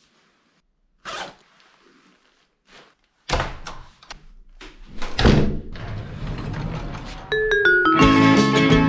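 Several knocks and thuds, with low rumbling handling noise, as someone moves about and carries the camera. Then music with plucked, steelpan-like notes starts about seven seconds in and becomes loud.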